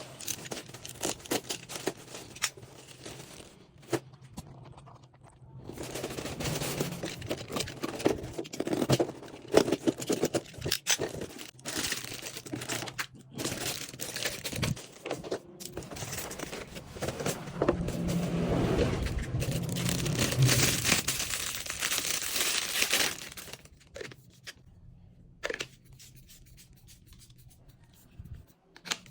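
A plastic-wrapped parcel being torn open by hand, the wrapping crinkling and rustling, with scattered clicks and scrapes. The tearing and rustling are heaviest and steadiest over a long stretch past the middle, then die down to a few clicks near the end.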